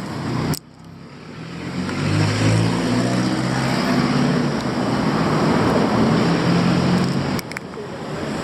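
Street traffic noise that drops away abruptly under a second in, then a motor vehicle engine running close by, its low hum building over a few seconds and easing off near the end.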